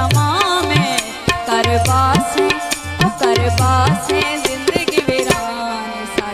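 Punjabi folk music led by tabla: a driving rhythm of sharp strokes, with deep bass-drum strokes that bend upward in pitch, under a wavering melody line. About five seconds in, the bass strokes drop out and the tabla plays a quick run of rapid strokes.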